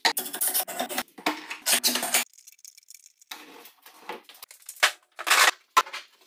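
Wooden cauls and steel pipe clamps being handled and tightened on a glued-up end-grain cutting board: a string of short scrapes and knocks, with a brief lull a little past two seconds in.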